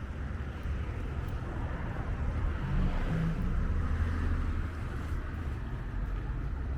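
A vehicle going past, its sound swelling to a peak about halfway through and fading again, over a steady low rumble.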